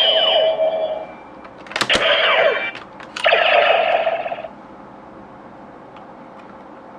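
DX Neo Decadriver toy belt playing electronic sound effects through its small speaker. A ringing tone phrase ends about a second in, then sharp plastic clicks with falling sweeps come near two seconds, and another short ringing phrase runs to about four and a half seconds. After that only faint hiss remains.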